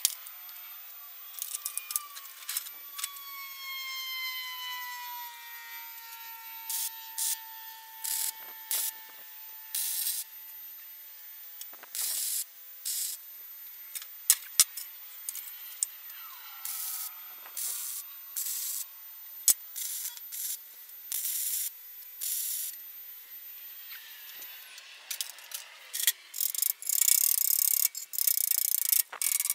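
MIG welder laying short tack welds on 1x1 square steel tubing: irregular crackling bursts of about half a second each, with denser, louder welding near the end. A whine falls slowly in pitch a few seconds in.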